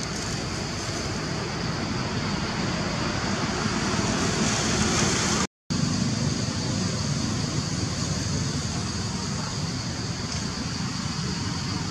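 Steady forest ambience: an even rushing noise with a constant high-pitched drone over it, with no clear single event. It cuts out for an instant about halfway through.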